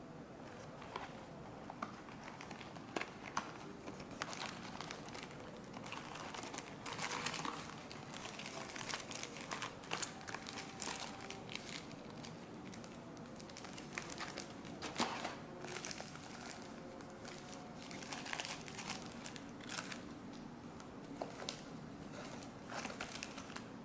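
Plastic trading-card packaging crinkling and rustling as it is handled, with irregular sharp crackles throughout.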